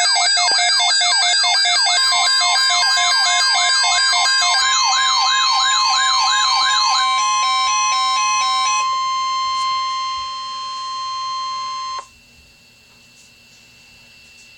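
A weather alert radio's siren alarm, a fast, repeating up-and-down sweep, sounds for about the first seven seconds. About two seconds in, the NOAA Weather Radio warning alarm tone joins as one steady tone, the signal that an urgent alert follows, and cuts off abruptly near twelve seconds, leaving a faint hiss.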